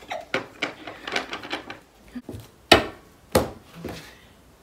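Tarot cards being gathered and handled on a table: a run of quick light clicks and rustles, then two loud knocks against the tabletop a little past the middle.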